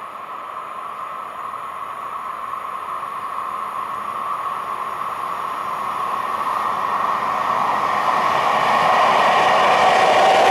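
Croatian Railways electric locomotive hauling a container freight train, approaching along the track and growing steadily louder. The noise of the wheels on the rails builds throughout, and a clearer tone comes in near the end as the locomotive draws close.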